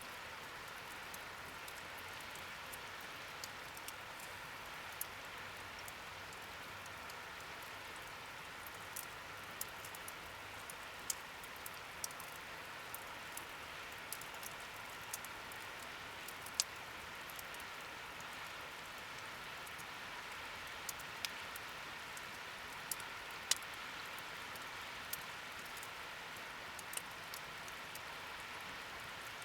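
Wood fire burning in a fire stand: a steady soft hiss with irregular sharp crackles and pops.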